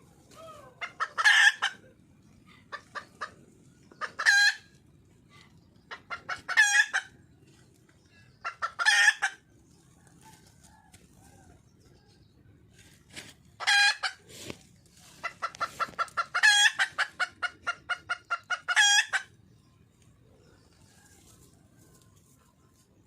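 Wild junglefowl hen calling for a mate: loud cackling calls repeated every two to three seconds, with a run of quick clucks at about four a second in the last third, then stopping.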